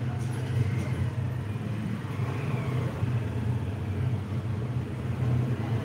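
Street traffic noise: a steady low engine rumble, with a faint wavering higher sound about two seconds in.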